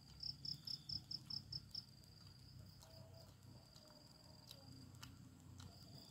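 An insect chirping: a quick run of about eight short, high chirps in the first two seconds, over a faint, steady high trill.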